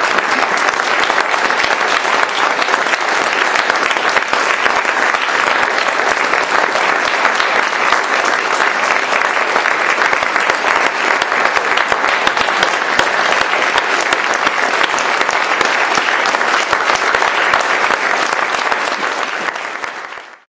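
Audience applauding steadily, with a dense crackle of many hands clapping, fading out near the end.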